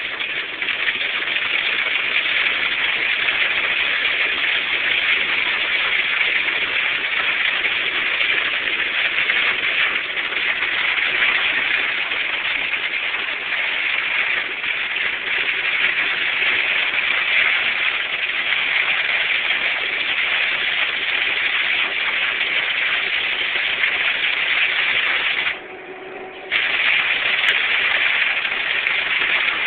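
Hail and heavy rain pelting down in a dense, steady hiss. The sound drops away for about a second near the end.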